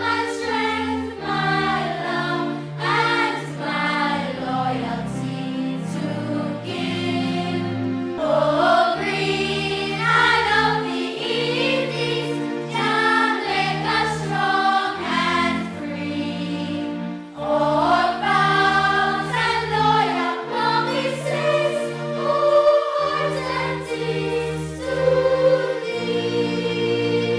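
Background music with choral singing: sustained sung chords over a low accompaniment, with a brief dip about two-thirds of the way through.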